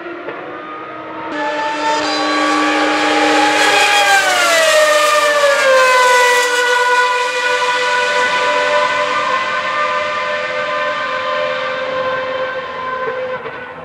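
Ferrari Formula 1 V12 engine at high revs, passing at full throttle. About a second in it jumps to a loud, high-pitched scream, the pitch slides down as the car goes by, then it holds steady and slowly fades as the car draws away.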